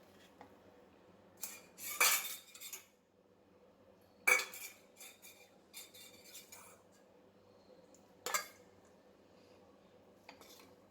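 A metal spoon clinking and scraping against a dish in several short, separate bursts; the loudest come about two and four seconds in, with another about eight seconds in.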